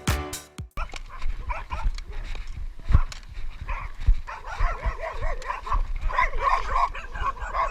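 Dog whimpering, a long run of short whines that rise and fall in pitch, with a sharp knock about three seconds in.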